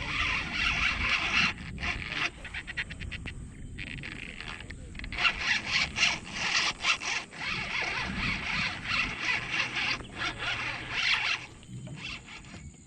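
Yumoshi XF spinning reel's drag buzzing in irregular bursts with short pauses as a hooked fish pulls line off the spool.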